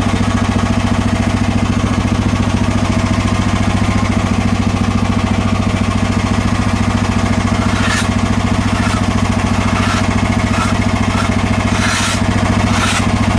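Portable bandsaw sawmill's gasoline engine running steadily under load while the band blade saws a flat spot on an ash burl. A few short, sharp ticks come through in the second half.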